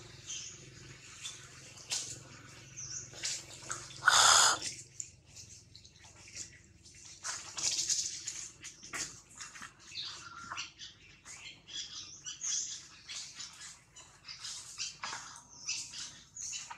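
Dry leaf litter crackling and rustling in short irregular bursts as long-tailed macaques shift on it, with one loud short sound about four seconds in.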